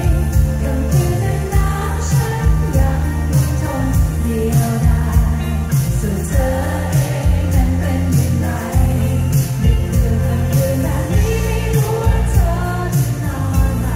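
Live pop band in concert: a woman singing lead over electric guitars, bass and drums with a regular beat, loud and bass-heavy as heard from within the crowd.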